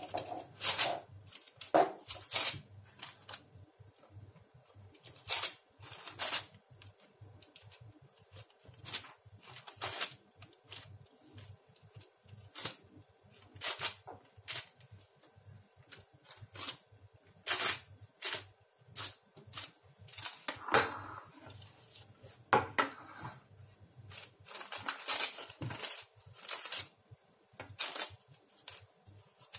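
Irregular knocks, clinks and clatters of household things being handled, dishes and utensils among them, coming every second or two with no rhythm.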